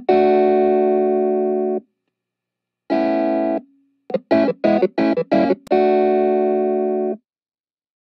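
Background music: held instrumental chords that cut off abruptly into silence, then a quick run of short stabbed chords and another held chord that stops dead.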